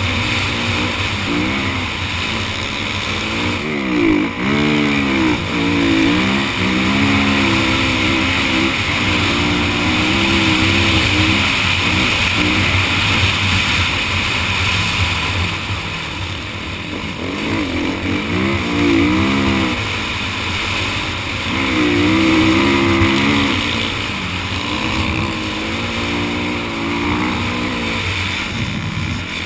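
Kawasaki KX450F dirt bike's single-cylinder four-stroke engine, heard from on the bike, running hard through sand and revving up and down repeatedly as the throttle is worked.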